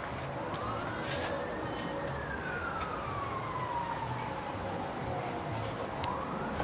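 A wailing siren: one slow rise and fall in pitch over about five seconds, starting to rise again near the end.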